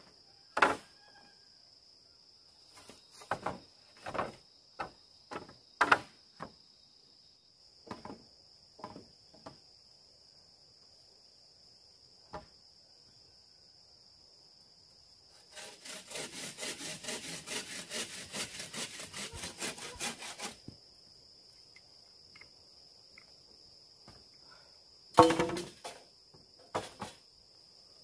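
A hand saw cutting through a green bamboo pole with quick, even strokes for about five seconds, between scattered hollow knocks of bamboo poles being handled. A steady high-pitched insect drone runs underneath.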